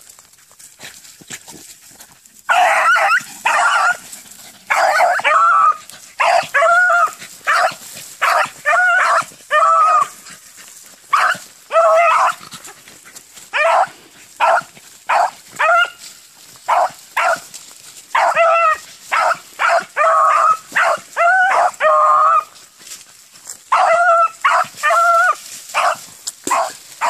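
Beagles baying while running a track in brace: a long run of short, ringing hound calls, repeated every half second or so, starting about two and a half seconds in.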